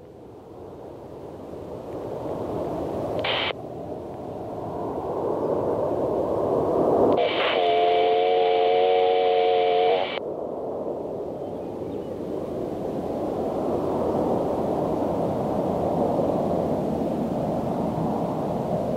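Jet noise from the Blue Angels' four F/A-18 Hornets in diamond formation, a steady rushing sound that grows louder over the first several seconds and then holds. A scanner radio cuts in with a short burst about three seconds in, then an open transmission of steady humming tones without words from about seven to ten seconds.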